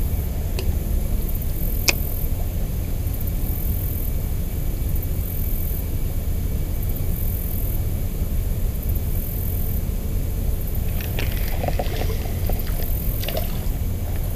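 Steady low rumble of outdoor background noise, with a single sharp click about two seconds in and a few light clicks and rattles near the end.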